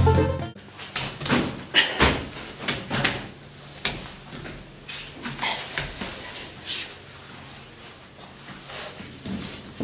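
Music cuts off about half a second in, followed by a run of irregular knocks and clunks, loudest in the first few seconds, with a small room's echo.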